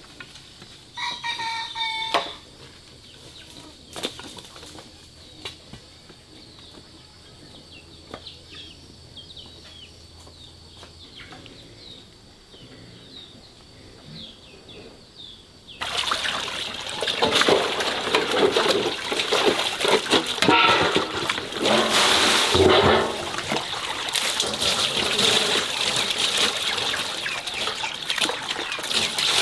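Water sloshing and splashing, loud and continuous, starting abruptly about halfway through. Before it there are quiet farmyard sounds, with a brief animal call about a second in.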